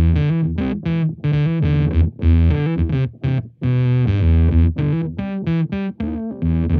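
Electric guitar on its bridge pickup, played through the Ruiner fuzz side of a Devi Ever BDSM pedal at low gain into a valve amp. It plays a quick riff of short, staccato single notes that cut off abruptly, in a gated, squelchy, synth-like fuzz tone.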